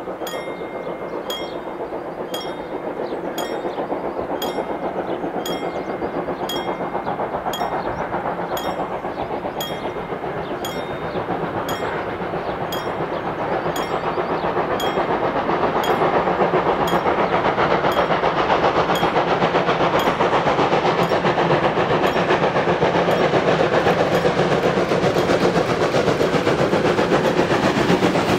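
Steam locomotive 35 1097 approaching with its train, working hard. Its exhaust and running noise grow steadily louder and fill the sound by the end. A level-crossing warning bell dings evenly about one and a half times a second, sinking under the train noise about halfway through.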